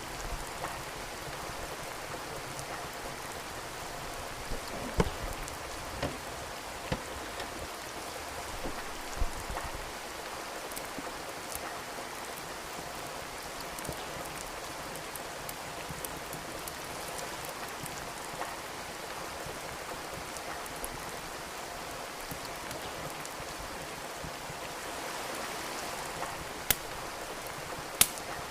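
Steady rain with the crackle of a wood fire in a fireplace: sharp pops from the burning logs now and then, several in the first ten seconds and two near the end, over the even hiss of the rain.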